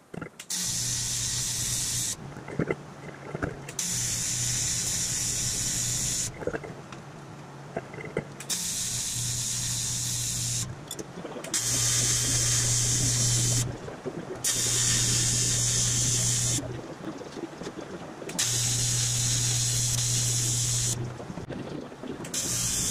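AC TIG welder arc on aluminum, buzzing and hissing in about seven runs of two to three seconds each with short pauses between, as an aluminum bar is tacked around a grille shell.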